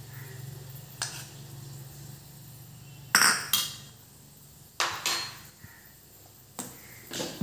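A metal spoon knocking and clinking against a non-stick frying pan and other cookware, in several sharp clatters, the loudest a quick pair about three seconds in, over a low steady hum.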